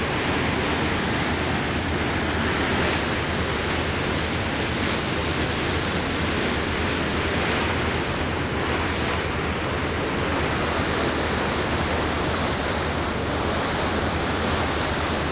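Steady rush of water churning along the hull of a moving boat, mixed with wind buffeting the microphone, with an unbroken low hum underneath.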